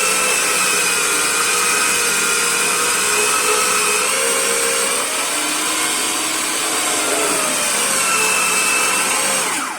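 Electric kitchen machine juicing lemon halves: a loud, steady motor whine whose pitch shifts about halfway through as the fruit is pressed, cutting off near the end.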